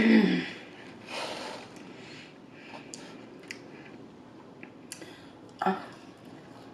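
Close-miked eating sounds of a person eating fried chicken fingers: a short hummed 'mm' at the start and again near the end, a breath through the nose, and a few small wet mouth clicks of chewing between.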